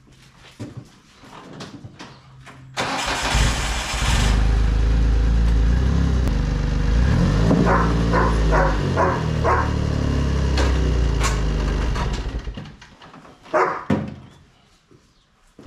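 John Deere Gator 825i's three-cylinder gasoline engine is cranked and catches about three seconds in. It runs and revs while the utility vehicle backs up onto ramps, then shuts off about twelve seconds in.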